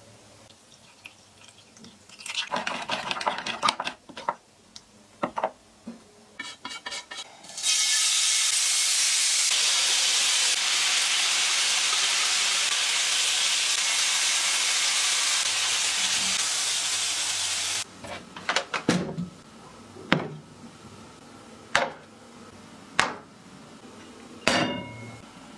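A metal spoon scrapes and clinks in a ceramic bowl as a sauce is mixed. Then squid skewers sizzle loudly and evenly on a hot grill pan for about ten seconds, cutting off suddenly. A string of sharp clinks and knocks follows, about one a second.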